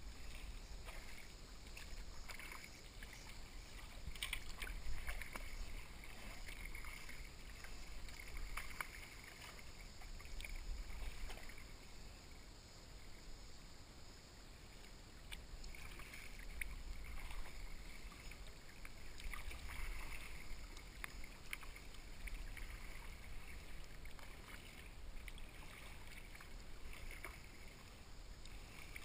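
Kayak paddling: a double-bladed paddle dipping and pulling through calm river water, with splashes and drips that rise and fall with each stroke. The strokes pause for a few seconds in the middle.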